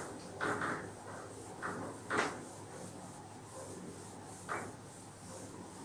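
Eraser wiping marker off a whiteboard in a handful of short, irregular swipes.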